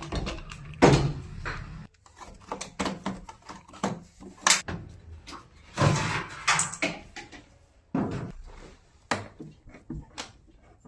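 Irregular knocks and clatter of objects being handled and set down, a dozen or more sharp hits at uneven intervals.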